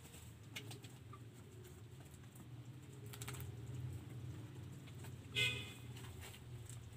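A domestic fowl gives one short call about five seconds in, over a steady low hum and a few faint clicks.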